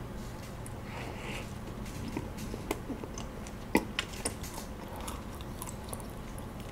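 A person biting and chewing toasted kaya toast, with scattered sharp crisp clicks from the toast. The loudest click comes a little past the middle, followed by a few quicker ones.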